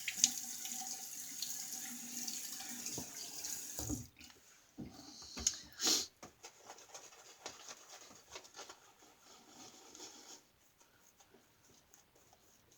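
Water tap running into a sink for about four seconds, then turned off; a few knocks and splashes follow before it goes quiet.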